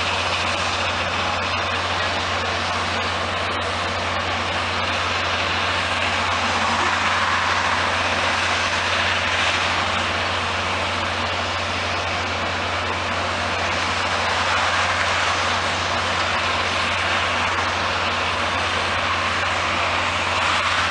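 A large engine running steadily, with a constant low hum under a broad rushing noise.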